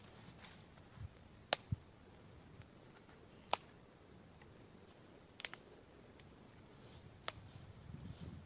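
Dry wood cracking in a few sharp, irregular snaps over a faint background, the loudest about three and a half seconds in.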